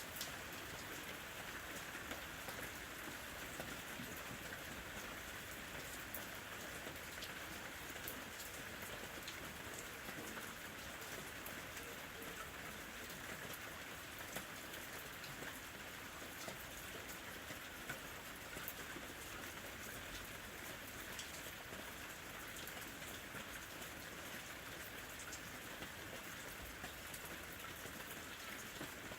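Steady rain falling, with many small, sharp drop ticks scattered through an even hiss.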